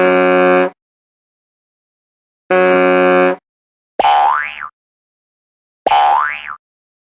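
Cartoon sound effects played one after another: two short, flat buzzy tones, each under a second, then twice the same springy effect whose pitch rises quickly, boing-like.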